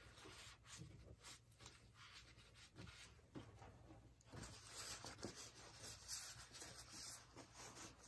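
Near silence: faint rubbing with a few soft ticks scattered through.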